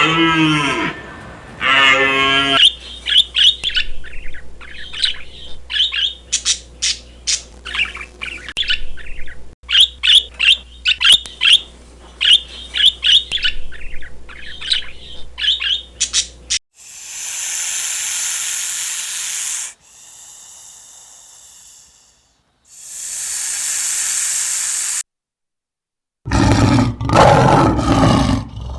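A string of separate animal sounds: a small bird chirping in quick, repeated short calls for about fourteen seconds, then two long hissing noises a few seconds each, and near the end a big cat, a lion or tiger, starting to roar.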